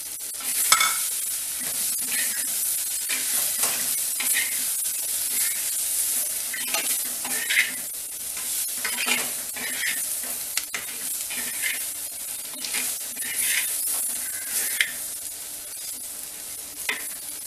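Slotted metal spatula stirring small brinjals and masala powder in a clay pot, scraping against the pot in repeated strokes about once a second, over the steady sizzle of the frying oil.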